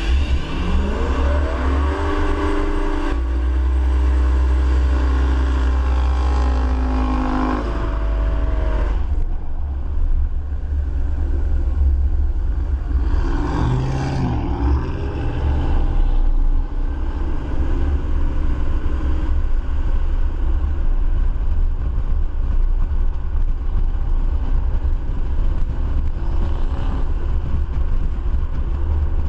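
Turbocharged 6.0-litre LS V8 revving: the pitch climbs steeply in the first two seconds, holds at high revs until about eight seconds in, then drops back. Loud engine and vehicle noise with a heavy low rumble carries on after that.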